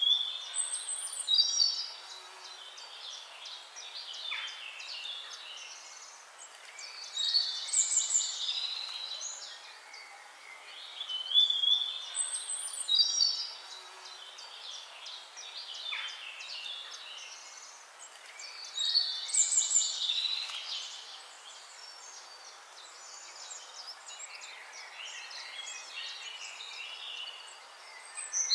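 Wild birds singing and chirping: bursts of quick, high twittering and trilled phrases every few seconds, with softer scattered chirps between them over a faint hiss. The same passage repeats about every twelve seconds.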